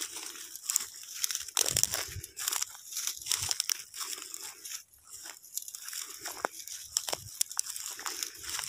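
Irregular crunching and crackling of dry straw stubble, a dense run of small crisp clicks and rustles.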